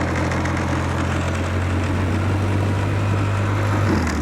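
A vehicle engine running steadily: a low drone under a rough, noisy layer.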